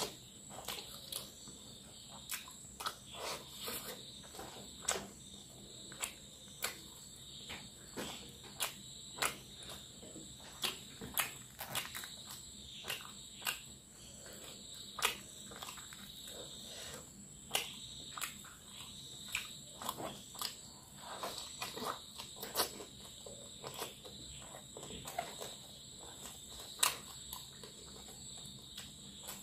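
Close-up eating sounds: wet mouth smacks and chewing of fish curry and rice, with fingers squishing through the rice, as irregular short clicks about one or two a second. A steady high-pitched whine runs underneath.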